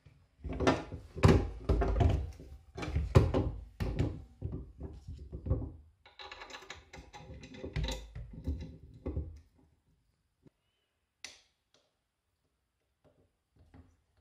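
Knocks and clunks of the plastic and metal parts of a Scheppach MSB1100 portable metal band saw as it is handled and adjusted by hand, its motor not running. A rattling stretch comes after about six seconds, and there is a single sharp click near the end.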